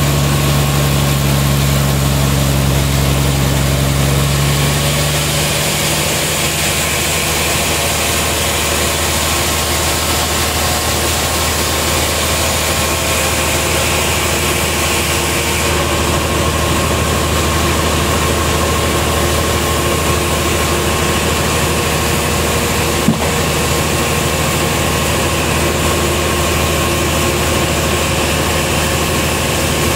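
Sawmill engine running steadily at idle, its note shifting lower about five seconds in. A single sharp click a little past twenty seconds.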